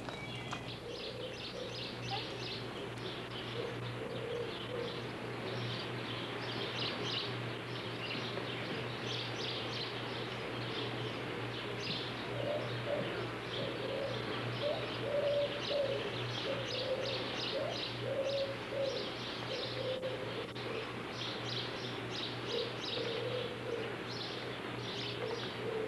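Small birds chirping busily throughout, with a dove cooing in low, repeated phrases, thickest through the middle, over a steady low hum.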